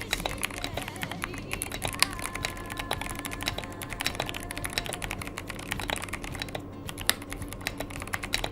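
Typing on a Cooler Master CK720 mechanical keyboard with Kailh Box V2 switches: a rapid, continuous run of keystroke clacks.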